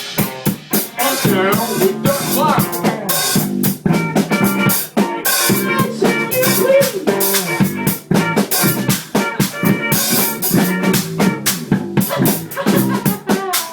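A live band playing loudly: a drum kit keeps a busy beat on bass drum and snare, with pitched instruments sounding held notes over it.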